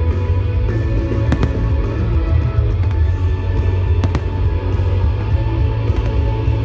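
Aerial firework shells bursting: two sharp bangs, about one and a half seconds in and again about four seconds in. They sound over loud music with a heavy bass line, which is the loudest thing throughout.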